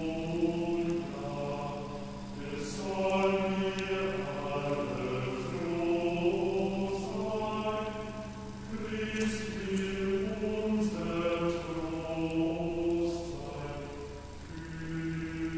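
Background music: slow chanted singing with long held notes over a steady low drone.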